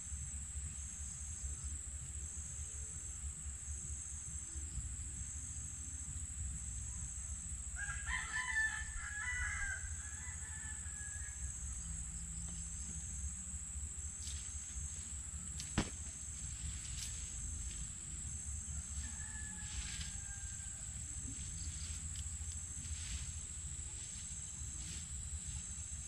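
A rooster crowing once, about eight seconds in, with a fainter crow-like call near the end, over a steady low rumble and a constant high-pitched whine. A single sharp knock cuts in about sixteen seconds in.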